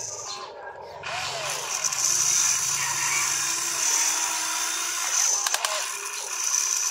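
Small electric motors of an RC excavator whining steadily as it works its arm and bucket in loose dirt, with a few sharp clicks a little past halfway.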